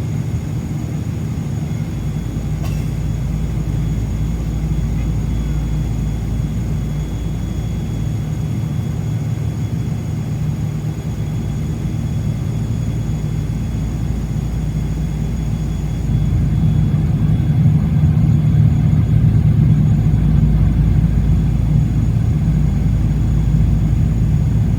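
Airbus A350-900's Rolls-Royce Trent XWB jet engines running before takeoff: a steady low rumble with a thin, steady high whine, growing louder about sixteen seconds in.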